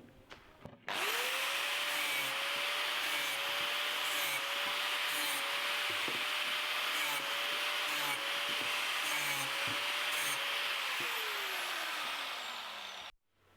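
Electric power tool deburring the cut ends of stainless steel tubes, grinding metal. The motor spins up about a second in, runs steadily with a rasping grind, then winds down over the last couple of seconds and stops.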